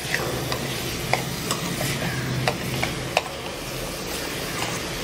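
Metal spoon scraping and clinking against a metal kadai while it stirs a thick, sizzling chana dal and jaggery filling, with irregular sharp clinks over a steady hiss. It is the filling being stirred continuously as it thickens so that it does not stick to the bottom.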